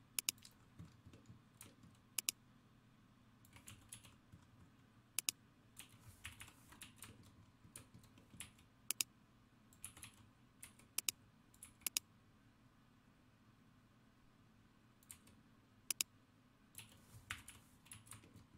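Faint clicks of a computer mouse and keyboard during desktop work. The short sharp clicks come at irregular intervals, many in quick pairs, over a faint low steady hum.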